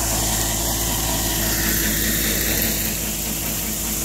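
Ride-on mower's engine running steadily while it cuts long grass.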